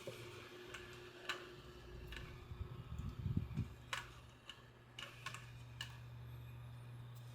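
Scattered light clicks and taps of small objects handled on a workbench, with a brief cluster of low, muffled knocks about three seconds in, over a steady low hum.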